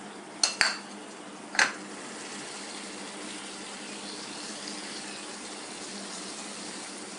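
Three sharp metal clinks of kitchenware in the first two seconds, two close together and one a second later, over a steady hiss of the masala cooking in the pan on the gas burner.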